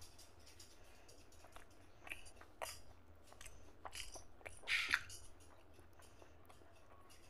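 Close-miked eating sounds of a person eating rice and mutton fat curry by hand: wet chewing and lip smacks in irregular clicks, the loudest just before five seconds in, then quieter toward the end.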